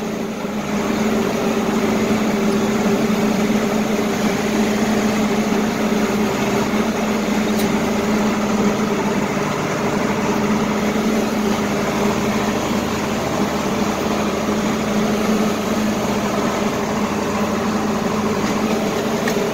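Tractor engine running steadily, a constant hum with no change in speed.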